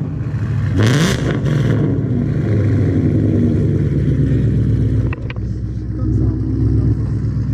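A 2015 Ford Mustang GT's 5.0 V8 through an aftermarket, non-stock exhaust, blipped once about a second in, rising and falling back, then idling steadily.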